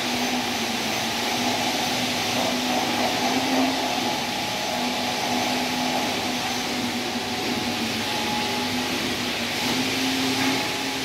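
Steady whirring drone of a motor-driven machine, with a faint hum that wavers in and out.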